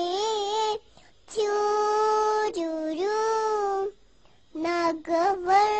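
A young child singing wordless held notes, in four short phrases broken by brief pauses.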